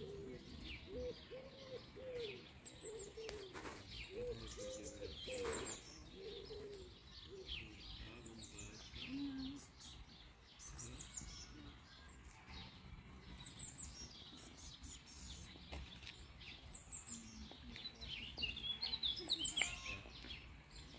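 Small birds chirping and singing in woodland: many short, high, falling notes, denser near the end. In the first few seconds a low call is repeated over and over.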